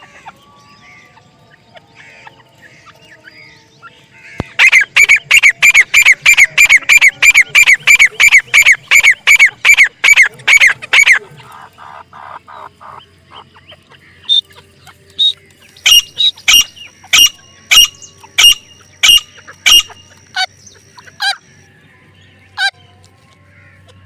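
Grey francolin (desi teetar) calling. After a few quiet seconds comes a fast run of loud, shrill, repeated calls, about three a second, for roughly six seconds. After a short lull the calls come again, slower and more spaced out.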